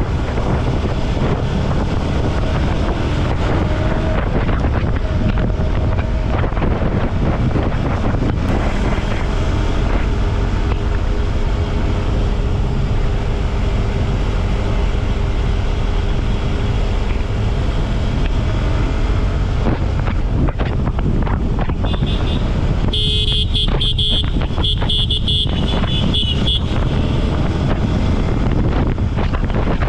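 Yamaha R15 V4's 155 cc single-cylinder engine running at a steady cruise, with wind noise on the microphone. A horn honks for a few seconds about three-quarters of the way through.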